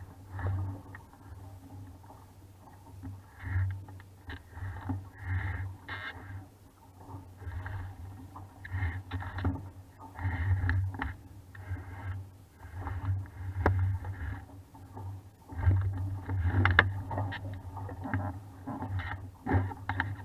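Water splashing and rushing against the hull of a 420 sailing dinghy under way, in uneven surges with a gusty low rumble and a few sharp knocks.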